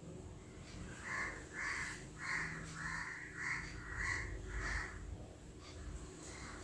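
A crow cawing, a run of about seven short, harsh calls roughly half a second apart, faint against a low steady background.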